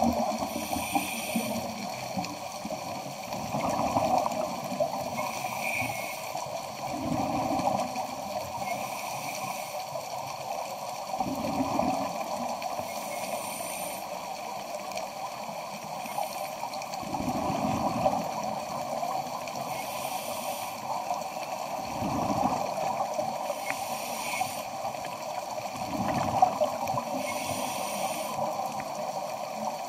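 Scuba diver breathing through a regulator underwater. Exhaled bubbles gurgle out every four to five seconds, alternating with short hissing inhalations, over a steady hum.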